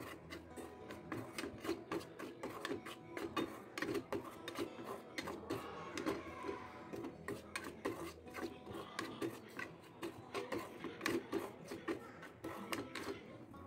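Steel spatula scraping and stirring wheat flour roasting in ghee in a metal kadhai: repeated rasping strokes against the pan, a few a second.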